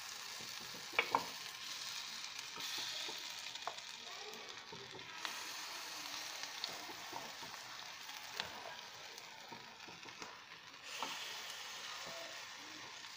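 Semolina (sooji) batter sizzling in hot oil as it is spooned into the cups of an appam pan. There are a few sharp clicks of the spoon against the pan, a double one about a second in.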